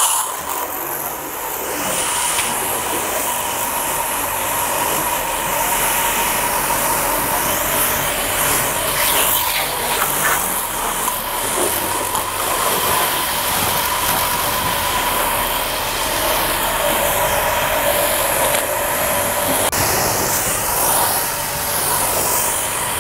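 JPT 1800-watt electric pressure washer running with a steady whine while its high-pressure water jet hisses against a car's body panels and wheels.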